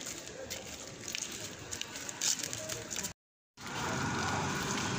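Night city-street ambience: a steady wash of traffic and street noise with scattered clicks. About three seconds in the sound cuts out completely for a moment, then returns louder.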